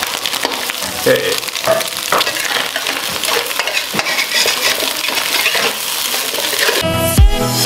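Chopped ingredients for fried rice sizzling in a hot wok while a metal spatula stirs and scrapes them, with small clinks against the pan. Music comes in near the end.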